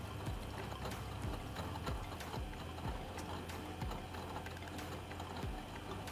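Vestel washing machine running its wash: a steady low motor hum, with water and laundry moving in the drum and irregular knocks every second or so.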